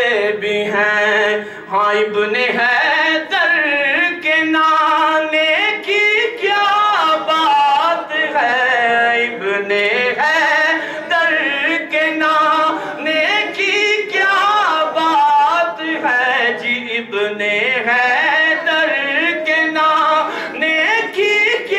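A man singing a naat (Urdu devotional poem) into a microphone, drawing out long, ornamented notes that slide up and down in pitch.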